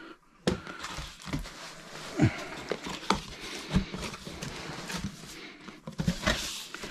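Cardboard packaging being handled as a large box is opened: irregular knocks and thumps with scraping and rustling of cardboard.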